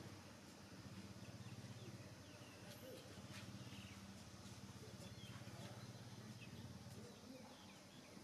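Near silence: faint short chirps over a steady low hum that fades near the end.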